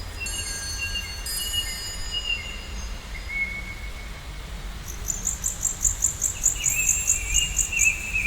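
Bird calls and a fast insect-like chirping over a steady low rumble. A thin whistled call holds near one pitch with small wavers. From about five seconds in, a loud rapid chirp pulses about four times a second. Thin ringing chime-like tones sound during the first two seconds.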